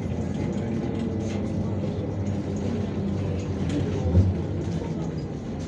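Inside a MAZ 103.465 city bus on the move: steady engine and drivetrain hum with road noise. A brief low thump comes about four seconds in.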